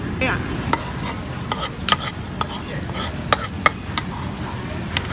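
Spoons clinking and scraping against a bowl and a plate at the table: irregular sharp clinks over a steady low background rumble.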